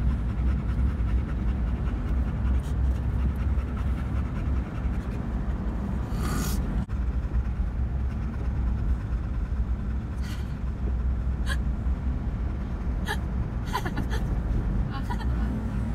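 Boxer dog panting inside a moving Ford Ranger pickup, over the steady low rumble of the truck on the road, with a few short higher-pitched sounds scattered through the second half.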